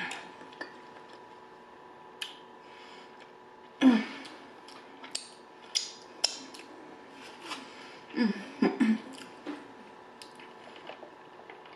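Close-miked eating sounds: scattered crisp clicks and crunches of chewing, with a couple of short hummed 'mm' sounds about four and eight seconds in.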